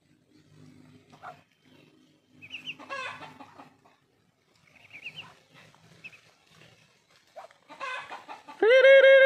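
Poultry calling: soft, low clucking sounds repeat throughout, with short high-pitched peeping chirps in two bursts about three and five seconds in. Near the end a much louder, steady held tone with a slight waver begins.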